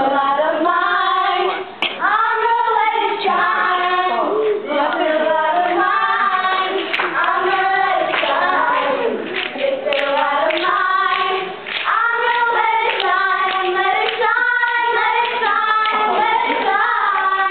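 Several young female voices singing together without instruments, with some hand clapping.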